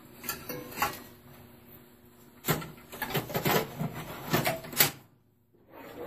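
Clicks and clattering knocks of a hard drive in its blue plastic caddy being handled, its cables plugged in, and fitted back into a Dell OptiPlex desktop's metal case. The sound cuts out briefly near the end.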